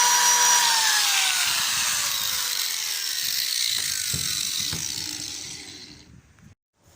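Electric power tool's motor, used for sharpening lawnmower blades, switched off and spinning down: a steady whine that, about half a second in, slides down in pitch and fades over several seconds. A couple of light knocks come near the end.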